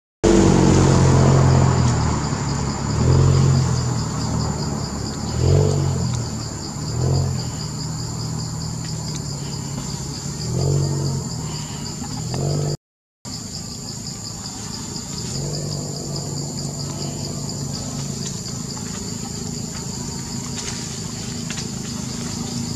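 Insects buzzing steadily in a high drone, with a motor vehicle's engine running and revving several times through the first half. The sound cuts out for a moment just after the middle, then only the insect drone and a faint low hum remain.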